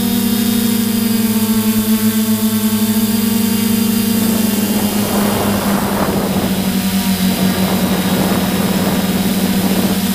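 Multirotor drone's propellers humming steadily at one pitch, with a rushing noise joining in about halfway through for a few seconds.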